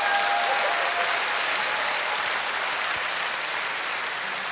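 A large hall audience applauding after a joke, a dense steady clapping that slowly fades.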